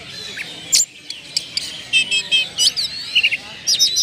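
Oriental magpie-robin (kacer) singing a fast, varied song of whistles, sweeping notes and short repeated chirps, the mix of learned phrases that keepers call its "isian".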